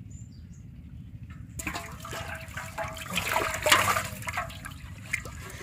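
A fish thrashing in a metal pot of water, splashing and sloshing loudly from about a second and a half in.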